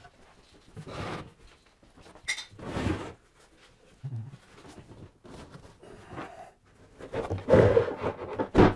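A large assembled wooden staircase unit scraping and knocking against a wooden workbench as it is rotated and tipped over, in several separate bursts. The loudest bursts come near the end as it is lowered flat, ending in a sharp knock as it settles on the bench.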